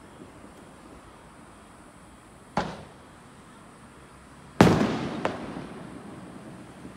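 Aerial fireworks shells bursting: one bang about two and a half seconds in, then a louder bang with a smaller crack half a second after it, each dying away in a long echo.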